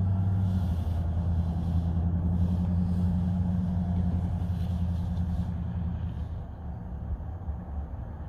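A low, steady engine drone that weakens after about six seconds.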